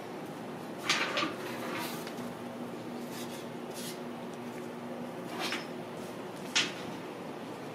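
Ragdoll kittens playing on a wooden floor: scattered light knocks and rustles, with the loudest about a second in and a sharp click near the end, over a faint steady hum.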